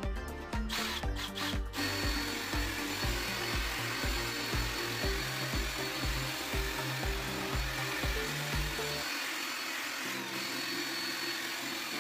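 Cordless drill spinning a round bristle scrub brush against a plastic case: a steady motor whine with a brushing hiss, setting in about two seconds in.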